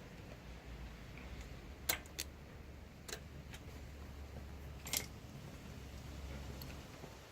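A few faint, sharp clicks spaced irregularly over a low hum that fades out near the end, with the engine shut off.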